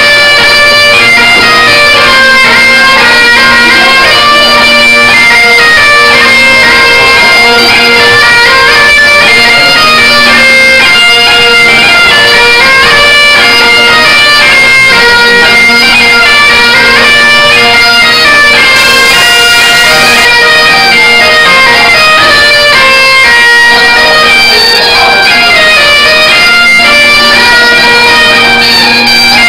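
Traditional folk dance tune played on a droning instrument: a lively melody over a steady, unbroken drone note.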